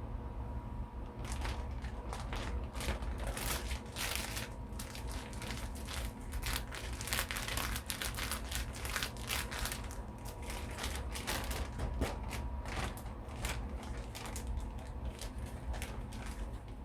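Irregular crinkling and rustling from hands working in the kitchen, most likely while breading chicken, over a steady low hum.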